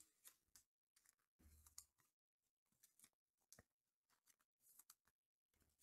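Faint rustling and clicking of trading cards and their pack wrappers being handled, in short irregular bursts over near silence.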